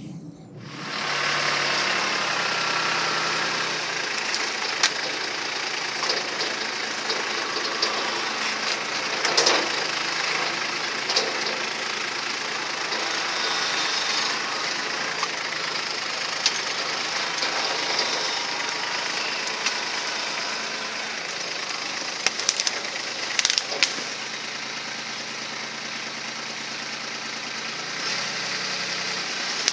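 Kubota B2261 compact tractor's three-cylinder diesel engine running steadily while its front-loader rake digger works into overgrown pond ground. Occasional short knocks and cracks sound over the engine, several close together about three quarters of the way through.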